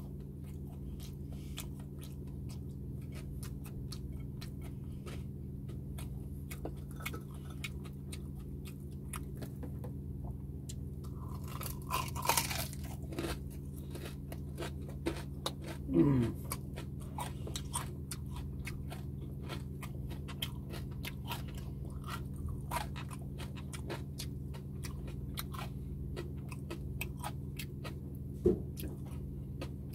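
Close-up chewing and crunching of crispy deep-fried pork knuckle (crispy pata), with many short crisp crackles all the way through, over a steady low hum. A short falling hum from the eater comes about halfway through and is the loudest moment.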